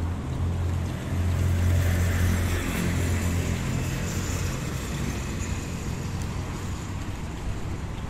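Low engine hum of passing road traffic, swelling over the first few seconds and then easing off.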